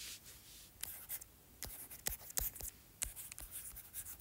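Stylus tip tapping and scratching on an iPad's glass screen during handwriting: a string of irregular sharp clicks, several a second.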